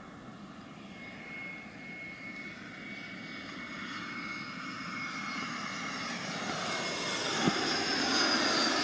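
Jet airliner on final approach, landing gear down, passing low overhead. Its engine noise grows steadily louder to a peak near the end, with a steady high whine at first and a high whine that falls in pitch as it goes over.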